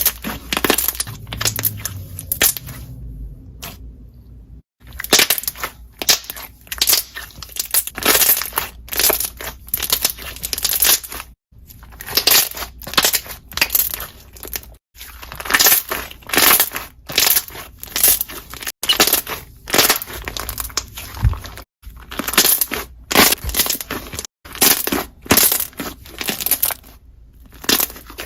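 Slime being squeezed and pressed by hand, its trapped air bubbles popping in dense runs of quick, crackly pops. The sound stops for a moment several times.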